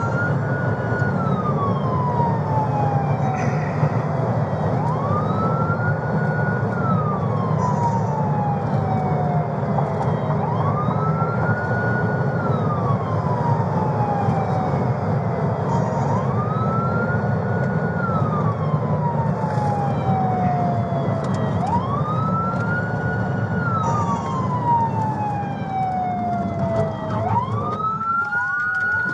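Police car siren on wail, each cycle rising quickly, holding briefly, then falling slowly, about every five seconds, heard from inside a pursuing patrol car over steady engine and road noise. Near the end a second siren joins in, overlapping the first.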